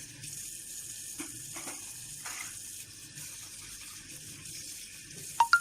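Tap water running into a kitchen sink during dishwashing, with a few soft knocks of dishes, then sharp ringing clinks of dishes knocking together near the end.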